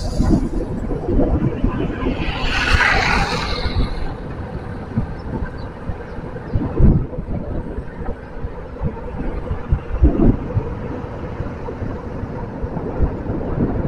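Wind rushing on the microphone and rumble of a bicycle rolling over the road, with a few knocks from bumps about seven and ten seconds in. A louder hiss swells and fades about two to four seconds in.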